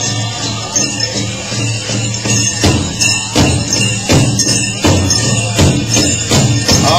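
Powwow drum song: a big drum struck in a steady beat, roughly one stroke every 0.7 s, with metal jingles and bells shaking over it.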